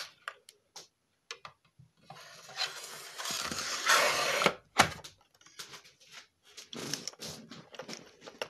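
Silverfish 24 V lithium-ion e-bike battery's metal case being slid onto its slider mounting plate: a scraping slide of about two and a half seconds that grows louder and ends in a sharp click, followed by light knocks and clicks as the battery is settled.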